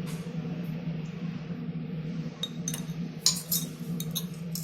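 A metal spoon clinking against a drinking glass, several sharp taps in the second half with the loudest about three seconds in, over a steady low hum.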